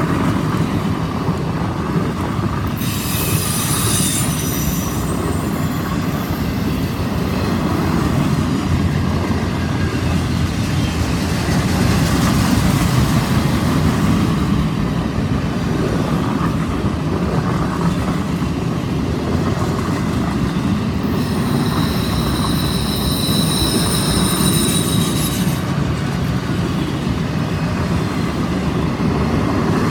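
Freight train of loaded auto rack cars rolling past with a steady rumble of steel wheels on the rails. The wheels squeal high-pitched on the curve: briefly a few seconds in, and again for about four seconds about two-thirds of the way through.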